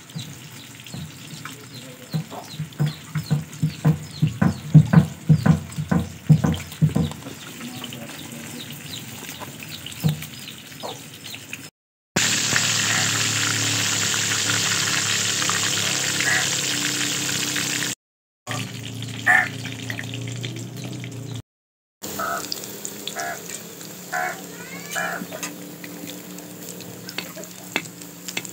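Gram-flour batter being mixed by hand in a steel bowl: irregular wet squishes for the first several seconds. Then fish deep-frying in oil in an iron karahi, a steady loud sizzle for about six seconds. Short hen clucks come near the end.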